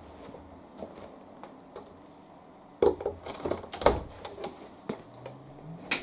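Laundry being unloaded from a Hoover condenser tumble dryer: handling noise with a cluster of knocks and clicks about three to four seconds in and a sharp click near the end.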